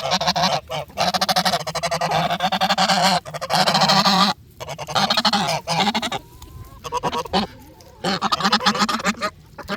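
Domestic geese honking: several loud, harsh calls that run together for the first few seconds, then shorter, choppier honks with brief pauses between them.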